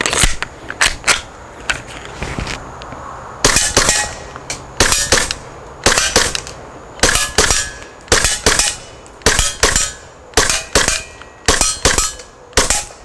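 Tokyo Marui Glock 17 Gen4 gas blowback airsoft pistol firing a string of about a dozen single shots from a VFC Glock Gen5 gas magazine. Each shot is a sharp double crack of the gas discharge and slide cycling, mostly about one a second after a short pause near the start.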